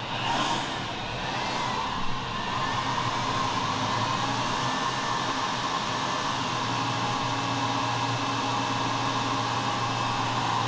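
Tractor engine running with a steady whirring hum. It grows louder over the first few seconds, then holds level.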